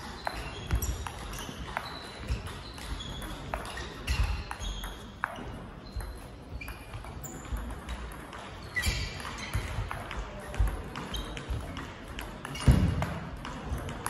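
Table tennis rally: the celluloid-style plastic ball clicking back and forth off bats and table at an irregular pace, with thuds of the players' footwork on the hall floor.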